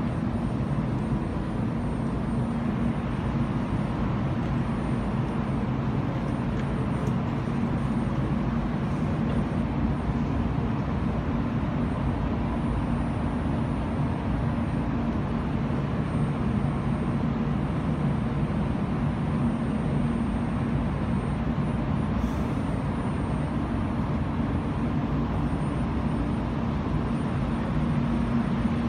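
Taiwan High Speed Rail 700T trainset standing at the platform, its onboard equipment giving a steady low hum and rumble that does not change.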